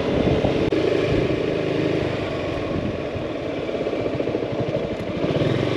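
Yamaha maxi-scooter engine running while being ridden along a road, with road and wind noise. The engine sound eases off a little in the middle and picks up again near the end.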